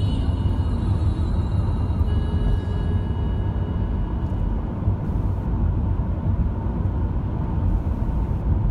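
Car driving on a paved road, heard from inside the cabin: a steady low rumble of tyre and engine noise.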